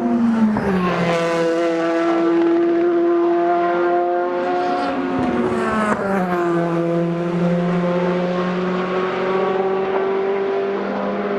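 Race car engines running continuously on the circuit, loud and steady. The pitch drops sharply twice, about half a second in and again about five seconds in, as cars go by or shift down, then holds level.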